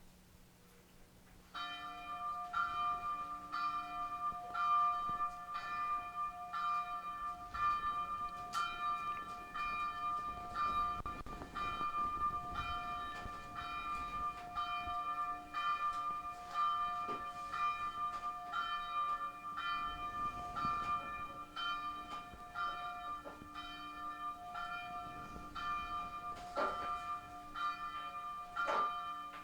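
Church bell ringing, struck about twice a second with the notes ringing on into each other; it starts suddenly and cuts off suddenly.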